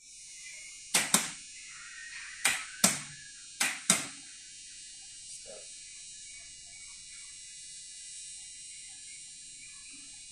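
Contactors and push buttons on a star-delta starter training board clicking as it is operated: three pairs of sharp clacks within about three seconds, over a steady high-pitched hiss.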